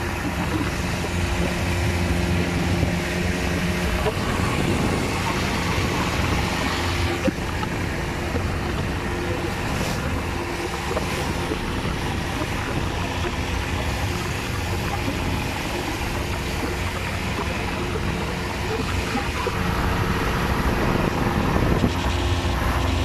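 A boat's engine running steadily as the boat cruises over open water, a constant low hum under a rush of wind and water.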